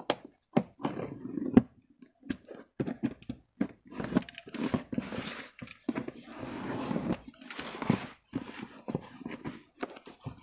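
Box cutter slicing through packing tape on a cardboard parcel: a run of clicks, taps and scrapes, then longer rustling and scraping as the blade drags along the tape and the cardboard flaps are pulled open.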